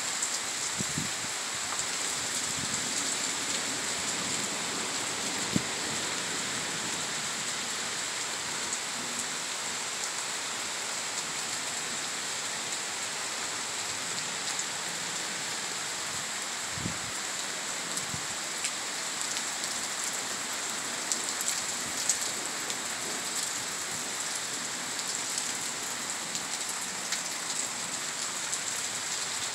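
Heavy rain pouring steadily in a thunderstorm, with now and then a sharp tap standing out.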